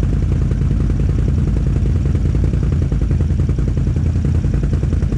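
Can-Am Outlander ATV engine idling close by: a steady low rumble that stays even throughout.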